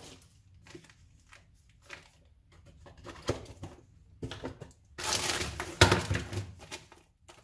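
Plastic packaging rustling and crinkling as it is handled, with a few light knocks of items set down on a table. The crinkling is loudest about five seconds in, when a plastic bag is pulled out of a tray.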